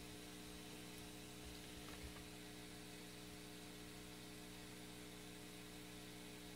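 Near silence: a steady low mains hum with faint hiss, and a tiny tick about two seconds in.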